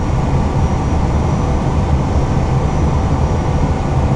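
Steady low rumble of airflow and engines heard inside an Airbus A320 cockpit on short final, a couple of hundred feet above the runway, with a faint high whine over it.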